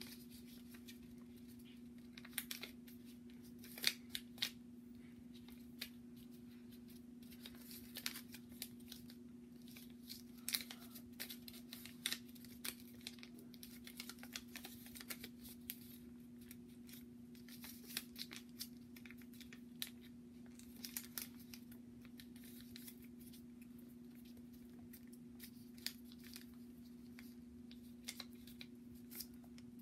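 Origami paper being folded and creased by hand: irregular short crisp crackles and rustles of the paper, several a second at times, with pauses between. A faint steady hum runs underneath.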